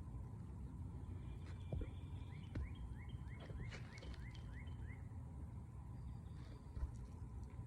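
A bird singing a quick series of short rising notes, about four a second, for a couple of seconds in the middle. A few soft knocks come through, the sharpest near the end.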